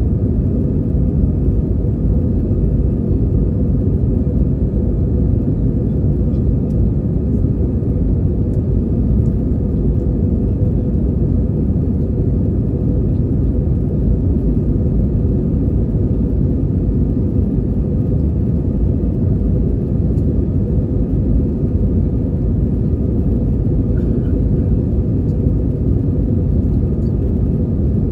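Airbus A320 cabin noise in the climb: the steady low rumble of the engines and the airflow past the fuselage, with a faint steady hum over it.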